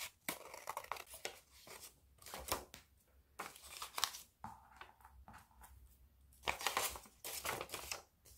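Scissors snipping through printed paper, with paper rustling and crinkling as the cut-out is handled; irregular crisp strokes, busiest near the end.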